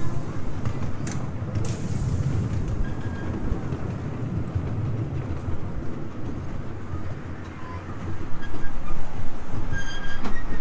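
Miniature train rolling along its track, heard from a passenger car: a steady low rumble of wheels on rail with a few sharp clicks over the joints. It grows louder about eight seconds in, and a thin high tone comes and goes near the end.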